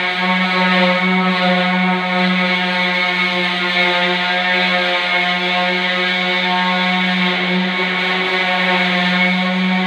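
Electric round-pad orbital sander running steadily with a humming whine as it sands the epoxy resin surface of a door panel.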